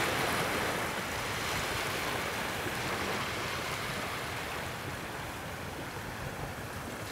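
A steady rushing noise, like surf or wind, slowly fading.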